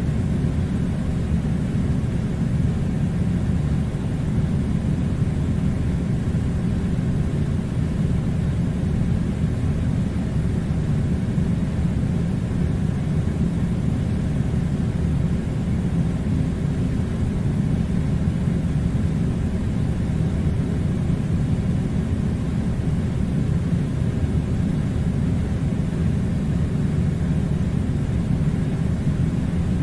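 Air conditioner running steadily: a constant low rumble with no changes.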